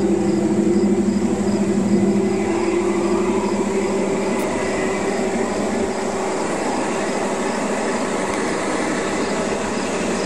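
G-scale model SD45 diesel locomotives running along garden railway track, a steady mechanical running sound of the train that eases slightly after about two seconds as it moves on.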